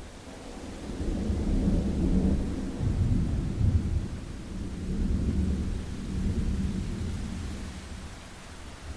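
A long roll of thunder over steady rain: the deep rumble builds over the first second, swells several times and fades away near the end, with an even rain hiss underneath throughout.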